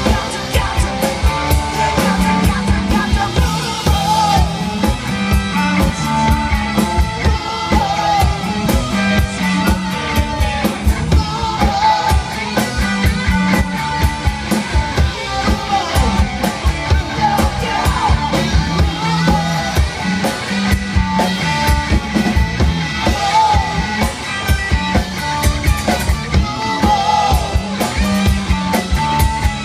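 Live rock band playing a song: a drum kit keeps a steady beat under electric guitars and bass, with an acoustic guitar strummed in the mix.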